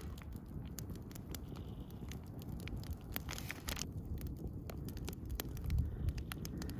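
Open wood campfire crackling, with irregular sharp pops and snaps, over a low rumble of wind on the microphone.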